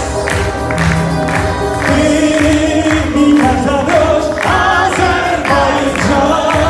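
A man sings held, wavering notes into a microphone over amplified instrumental accompaniment with a steady beat of about two strokes a second, including a tar.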